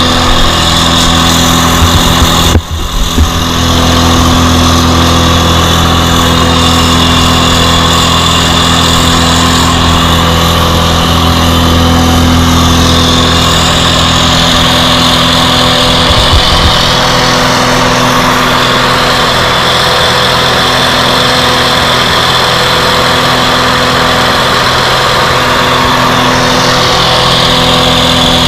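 Truck-mounted bark blower running steadily under load, its engine holding a constant drone over the rush of mulch being blown through the hose. The sound drops out briefly about two and a half seconds in, then carries on unchanged.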